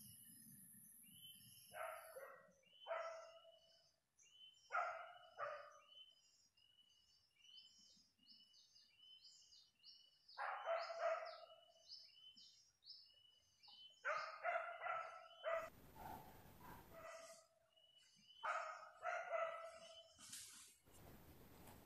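Hunting dogs barking in short bursts of several barks each, a few seconds apart, over a high, rapidly repeated chirping.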